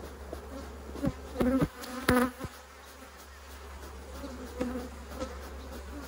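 Honeybees buzzing around an open hive, with single bees droning loudly close past the microphone about a second and a half and two seconds in. A few brief knocks come in among them.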